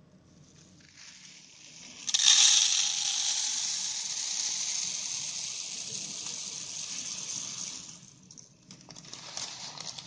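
Water mixing with activated carbon: a sudden loud rush of hissing and fizzing about two seconds in that fades slowly over several seconds, then scattered small crackles as bubbles keep rising.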